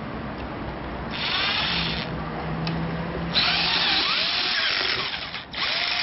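Cordless drill driving screws into a wooden boom. It runs in bursts: a short one about a second in, then a longer run from about three and a half seconds that stops briefly near the end and starts again.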